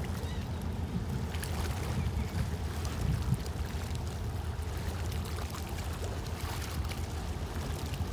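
Fast passenger ferry's engines giving a low, steady rumble as it pulls away from the pier, with water lapping and splashing.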